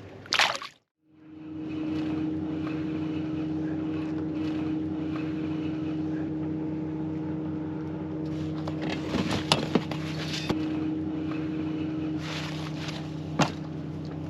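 A boat's motor running steadily at an even pitch, after a short burst of noise right at the start; a few sharp knocks sound about nine seconds in and once more near the end.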